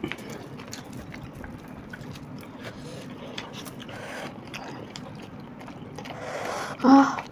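Close-miked eating: chewing, mouth clicks and fingers tearing paratha and scooping soft potato curry, heard as many small clicks and wet scrapes. Near the end comes a brief, loud pitched sound.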